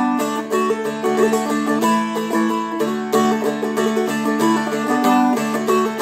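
Seagull Merlin, a four-string dulcimer-style instrument, flatpicked playing a quick Celtic jig melody over its steady open-string drones.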